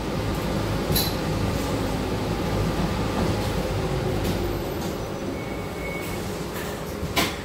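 Cabin noise inside a city bus: a steady low hum and rumble of the engine, ventilation and road. There is a short rattling knock about a second in and another near the end.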